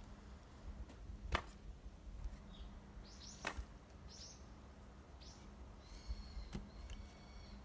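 Axe blows splitting firewood: two sharp chops about two seconds apart, the first the loudest, and a lighter knock near the end. Small birds chirp and call between the strikes.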